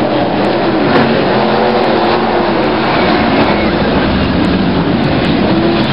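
A pack of winged dirt-track sprint car engines racing past, loud and steady, several engine notes rising and falling together as the cars accelerate and lift.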